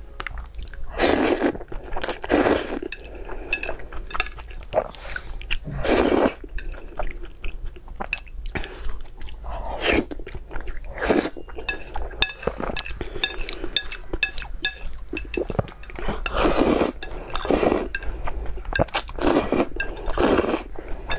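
Close-miked eating of spicy instant noodles and glazed eel: repeated noisy slurps of about a second each, with chewing and light clicks of chopsticks on a ceramic plate between them.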